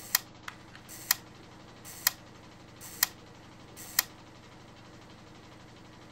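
Five sharp, single clicks at an even pace of about one a second, stopping about four seconds in, over a faint steady hum.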